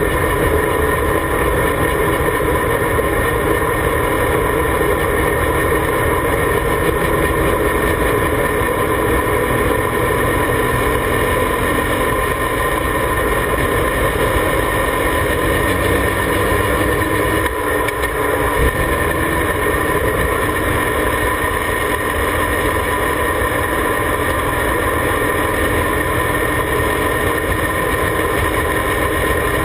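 Formula Mazda race car's Mazda rotary engine running steadily at an even cruising speed, heard loud and close from a camera mounted on the car, with a brief dip about 17 seconds in.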